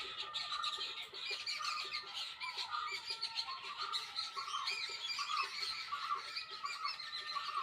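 Birds chirping: a steady stream of short, quick chirps and tweets, several overlapping at once.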